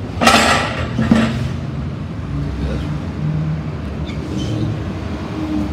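Melamine board pieces scraping and knocking as they are handled, lasting about a second and a half. A steady low hum follows, with a drifting engine-like tone.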